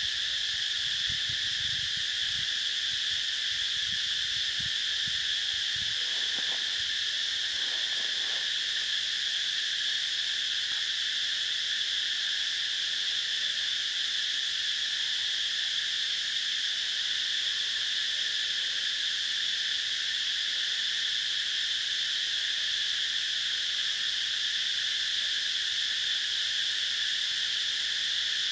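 Steady, unbroken chorus of insects: a high, shrill drone that holds the same level without rising or falling.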